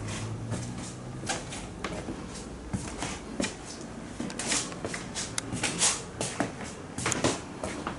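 Irregular clicks, taps and rustling of objects being handled, coming thicker and louder in the second half, with a low hum that fades out in the first second or so.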